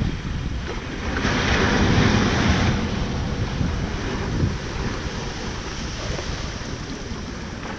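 Ocean surf washing up onto a sandy beach, swelling about a second in and then slowly easing off, with wind rumbling on the microphone.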